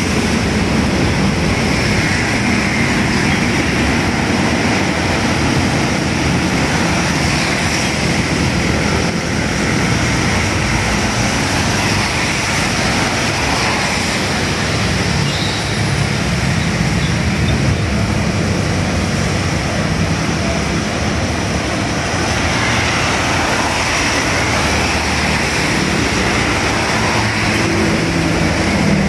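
Road traffic on wet asphalt: engines of passing motorcycles and buses with tyres hissing on the wet road, a steady wash of noise whose low engine rumble swells and fades as heavier vehicles go by.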